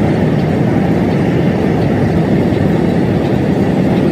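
Steady road and tyre noise inside a car moving at speed, heavy and low.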